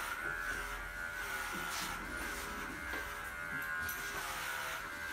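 Cordless electric pet clippers running with a steady high whine as they shave a pug's coat.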